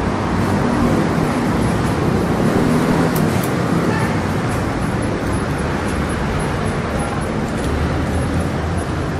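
Steady rumble of road traffic and motor vehicle engines, with a couple of faint sharp clicks about three seconds in.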